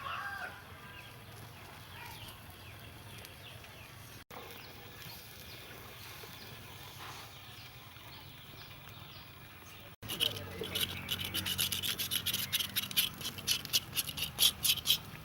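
Faint background for the first ten seconds. Then, from about ten seconds in, a fast series of rasping scraping strokes, several a second, as of a blade or rough tool scraped hard across a surface.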